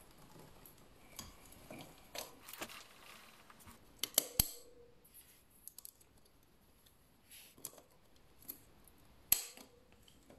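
A few light metallic clicks and clinks as a motorcycle's roller drive chain is handled by hand. The sharpest are a pair about four seconds in and one more near the end.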